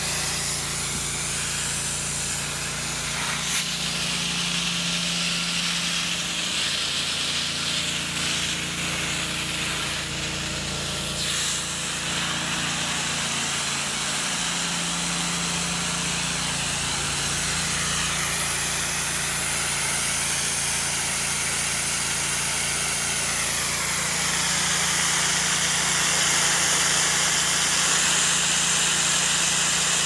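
Carpet-cleaning extraction wand being drawn over carpet under strong vacuum suction, a steady hissing rush of air over a low hum from the extractor. The tone shifts now and then as the wand's seal on the carpet changes, and it gets a little louder near the end.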